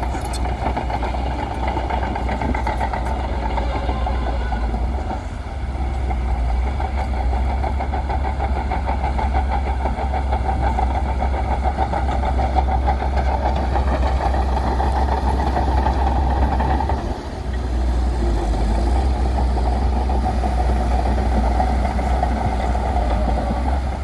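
Bulldozer's diesel engine running steadily while working, easing off briefly twice, about five seconds in and again past the middle.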